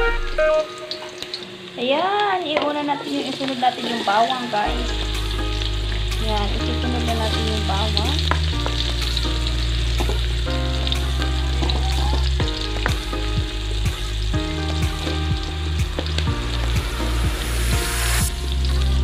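Ginger strips and garlic sizzling as they fry in oil in a metal wok, with a spatula stirring and scraping. Background music with a bass line plays over it, stronger from about five seconds in.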